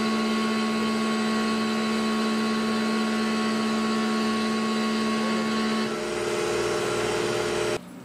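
Tormach PCNC 1100 CNC mill running steadily while it faces an aluminum plate under flood coolant: a loud machine whine with a steady hum under it. About six seconds in, the pitch of the whine changes. Just before the end the noise drops away suddenly as the machine stops.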